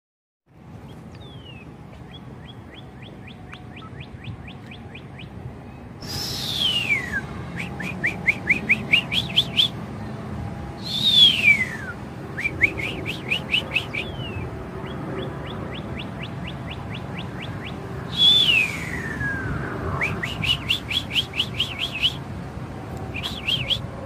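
Northern cardinal song traded back and forth with a person whistling an imitation of it. Each phrase is a downward-gliding whistle followed by a fast run of short rising notes. Fainter, more distant phrases alternate with louder, close phrases that have longer glides, about six, eleven and eighteen seconds in.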